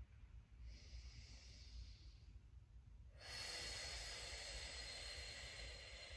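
A woman's slow, audible breathing: a short soft breath about a second in, then a longer, louder breath from about three seconds in that fades out near the end.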